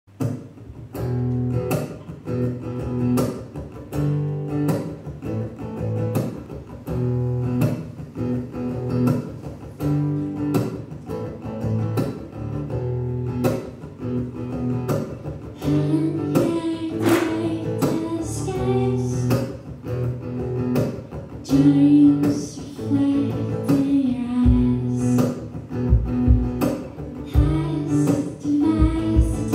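Acoustic guitar strummed in a steady rhythm, a live unamplified-sounding performance; a lead melody line joins about halfway through and carries on over the strumming.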